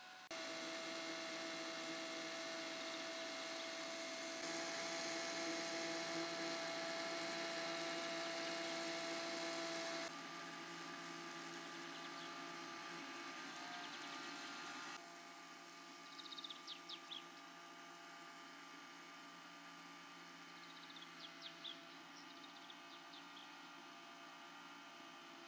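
Steady background hum with a few fixed tones, stepping up or down in level several times. A few faint, short high chirps come twice in the second half.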